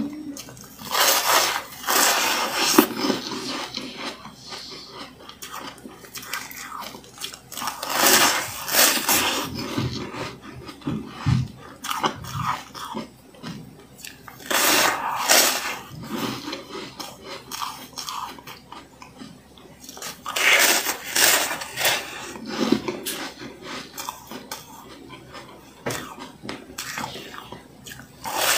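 Bites being crunched off a thin disc of coloured ice, then chewed in the mouth. Loud clusters of crunching come every six seconds or so, with quieter chewing crunches in between.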